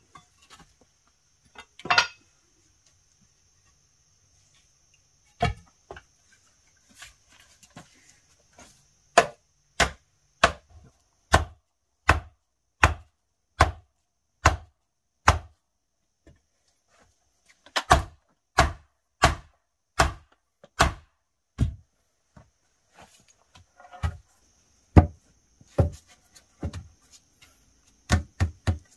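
A forked wooden stake being pounded into the earth with a wooden club. The result is a series of sharp wooden knocks, a little more than one a second, in several runs with pauses between them.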